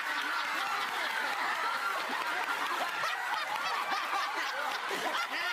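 Audience laughing, many voices at once, holding steady throughout.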